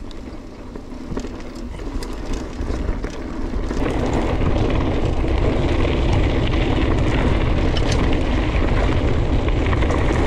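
Mountain bike riding along a farm track: steady tyre noise with scattered clicks and rattles from the bike, getting much louder about four seconds in as it rolls onto a loose gravel track.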